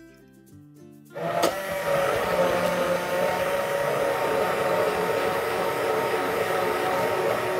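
KitchenAid hand blender switched on about a second in and running steadily in a steel pot, puréeing cooked carrot soup with cream.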